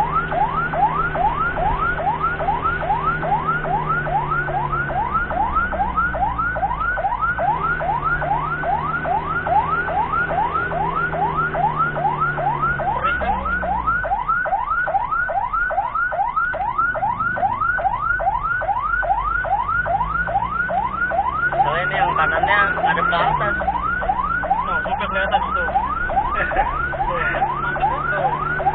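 Ambulance siren in fast yelp mode, a rising sweep repeating about three times a second without a break. Underneath, the ambulance's engine rises and falls in pitch several times as the vehicle speeds up and slows, and a brief cluster of other high tones cuts in about three-quarters of the way through.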